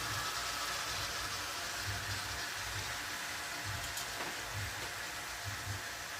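Chicken thighs frying in hot oil in a pan: a steady sizzle with a faint pop now and then, as the first side browns.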